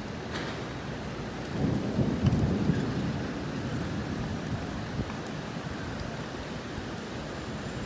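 Steady rain falling, with a low rumble of thunder that swells about a second and a half in and fades over the next couple of seconds.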